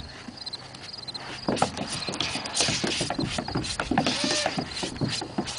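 A kitten's claws scrabbling on a plastic slide: a quick, irregular run of clicks and scratches that starts about a second and a half in.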